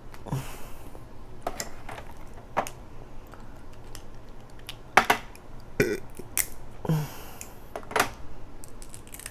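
Close-miked crab eating: a string of sharp, uneven clicks and cracks as crab shell is broken open and the meat picked out.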